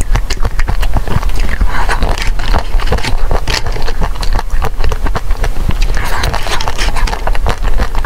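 Close-miked chewing and crunching of frozen ice cream cubes: a dense, continuous run of crackling clicks.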